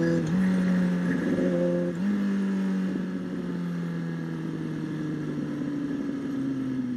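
Kawasaki ZX-6R 636 inline-four engine heard from the saddle; its note steps up twice early on, as with downshifts, then winds slowly down as the bike slows, over steady wind noise.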